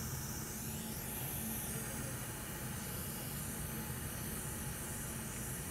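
Hot air rework station blowing a steady hiss over the board, reflowing the solder balls of a freshly placed BGA chip, the KB9548GF Super I/O.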